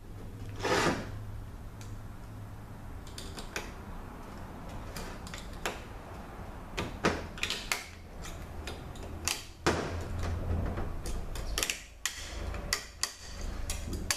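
Irregular metal clinks and clicks of steel clutch plates and a snap ring being handled and lifted out of an automatic transmission clutch drum, over a steady low hum.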